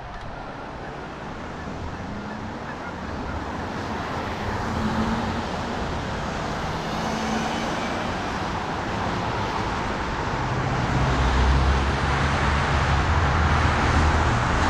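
Road traffic: cars and trucks driving past in a steady rush of engine and tyre noise, louder over the last few seconds as a vehicle passes close by.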